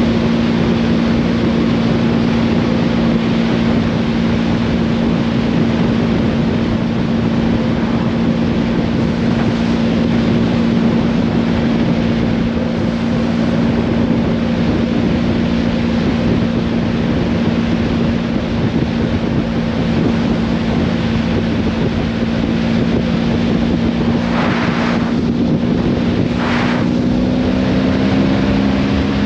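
Motorcycle engine humming steadily at cruising speed under the rush of wind over the bike, the engine pitch rising slightly near the end. Two short rushes of noise come a few seconds before the end.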